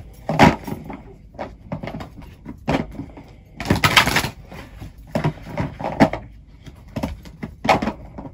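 Irregular short rustles and knocks from objects being handled, with one longer rustle about four seconds in.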